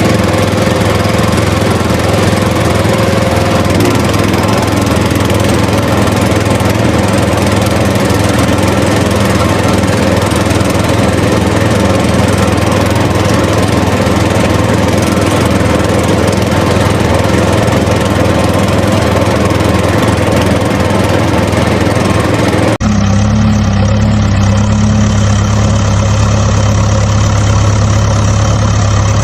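An engine running steadily. Near the end it cuts suddenly to a different, deeper engine hum.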